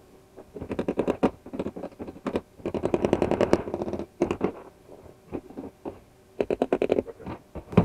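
Claw hammer tapping bolts down into the holes of a plastic cart tub: several quick runs of light, rapid taps with short pauses between.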